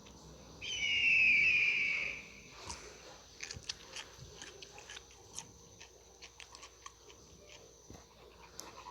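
An animal's loud, harsh cry lasting about a second and a half and falling slightly in pitch, then a run of irregular soft clicks.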